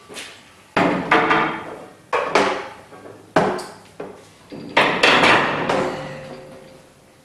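Irregular sharp metal clanks, about a dozen in loose clusters, each with a short ring, as angle grinders are hung on and knock against a bent steel-rod wall rack. The loudest clanks come about five seconds in.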